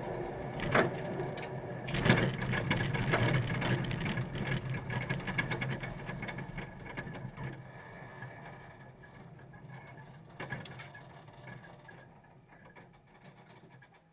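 Classic Mini race car's engine running at low speed from inside the stripped, roll-caged cabin, with many clicks and rattles from the car's interior and two louder knocks in the first couple of seconds; the sound grows quieter through the second half.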